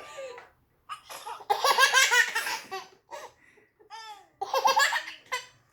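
A baby belly-laughing in repeated bursts, loudest about a second and a half in, with another hearty burst near the end.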